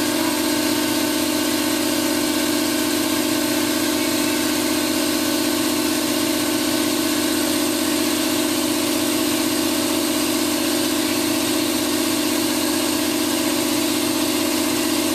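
1999 Chiron FZ18L CNC vertical mill running with its X axis traversing slowly: a steady, even machine hum with a strong low tone and no change throughout. The axis motion sounds very smooth.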